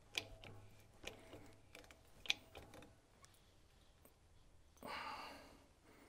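Lug crimping tool being worked on a cable lug: a few sharp metallic clicks with a brief ring, spaced about a second apart, then a short breathy hiss near the end.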